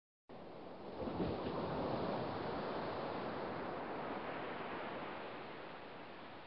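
Wash of small waves on a sandy shore with wind on the microphone: an even rushing noise that comes in after a brief gap, swells about a second in, then slowly dies away.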